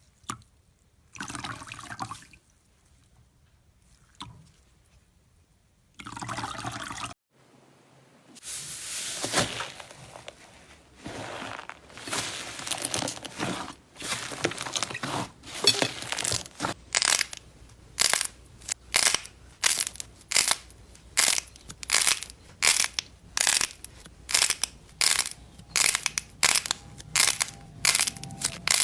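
Slime being pressed and squished by hand. Two short squishes come first, then a stretch of steady handling, and in the second half a regular run of short presses, about two a second.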